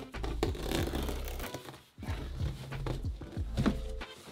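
Scissors cutting along the packing tape of a cardboard box in a series of irregular scraping strokes, with cardboard rustling and knocking as the box is handled.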